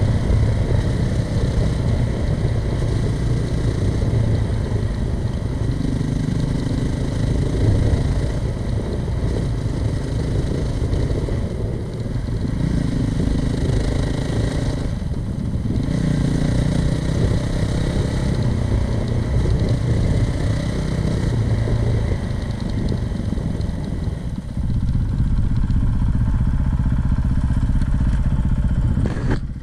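Honda CRF450RL dual-sport motorcycle's single-cylinder four-stroke engine running under way. Its pitch rises and falls in steps with throttle and gear changes through the first half, then runs steadier near the end.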